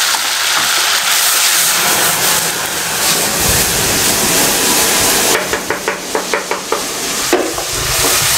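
Tomato ketchup and garlic sizzling hard in hot oil in a wok over a high gas flame. About three seconds in a low rumble joins as the wok flares up in flame, and from about five and a half seconds a wooden spatula scrapes and stirs the sauce in quick strokes.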